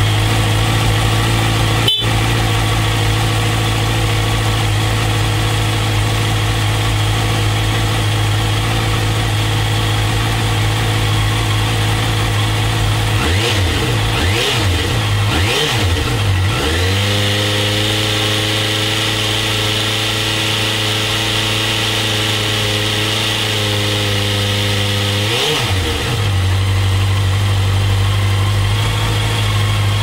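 2015 Honda CBR650F's inline-four engine through its stock exhaust, idling steadily. About halfway through it is blipped a few times, then held at raised revs for several seconds before dropping back to idle.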